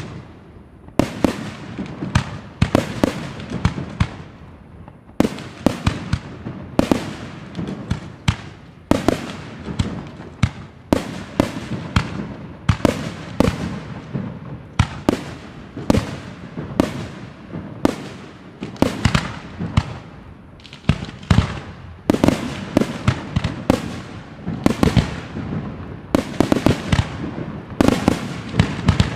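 Aerial firework shells bursting in a rapid stream of sharp bangs, several a second, with brief lulls every few seconds.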